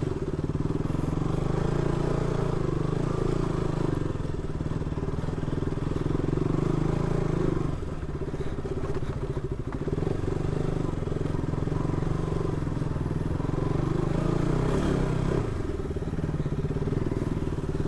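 Motorcycle engine running steadily while riding a rough off-road track, picked up by a helmet-mounted camera. The engine eases off briefly about eight seconds in and again near the end.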